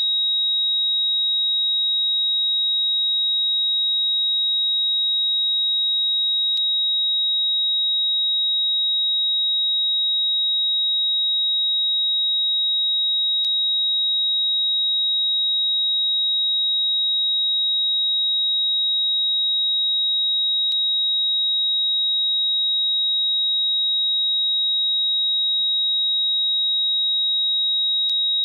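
Steady high-pitched electronic tone, one pure note held without a break at an even level, with faint ticks about every seven seconds.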